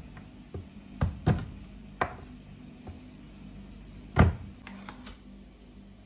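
Irregular knocks of a kitchen knife coming down on a wooden cutting board while chopping a bar of chocolate, about half a dozen, the loudest about four seconds in, over a faint steady hum.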